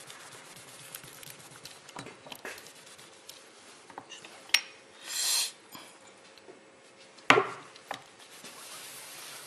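Tissue rubbing and light taps as small polished metal test pieces are wiped and handled on a workbench, with a short hiss about five seconds in and a sharp knock on the bench a couple of seconds later, the loudest sound.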